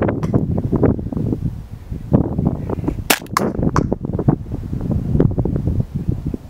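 Tokyo Marui MP7 airsoft submachine gun firing a short burst of several sharp, snappy shots about three seconds in, over a steady low background rumble.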